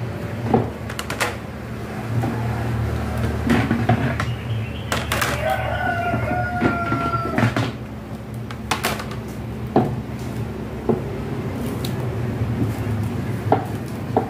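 Hard plastic cabinet panels knocking and clacking as they are lifted out of a cardboard box and set down, with the rustle of the box flaps. About five seconds in, a rooster crows once in the background, one long call of about two seconds.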